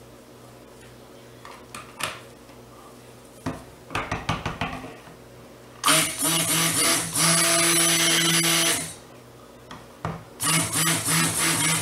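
Stick blender running in a plastic bowl of cold-process soap batter: one run of about three seconds starting about six seconds in, then a few short pulses near the end. Before it, a few knocks and clatters of the blender against the bowl.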